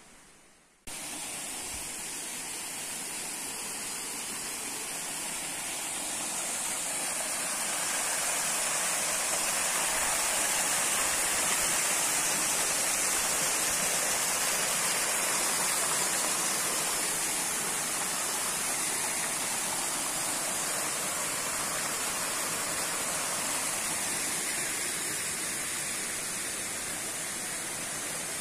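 Water spilling over a small stone weir from a pond into a creek: a steady rushing splash. It starts abruptly just under a second in, grows louder over the next several seconds, then eases slightly.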